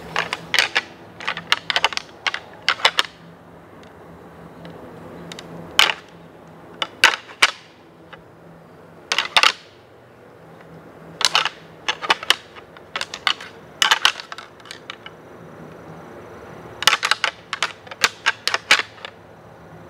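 Squirrel moving through dry leaf litter: bursts of quick crunching rustles, each a run of a few hops, with pauses in between.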